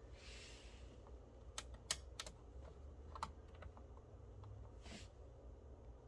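A handful of faint, sharp clicks and taps, bunched together about two seconds in, over a low steady room hum.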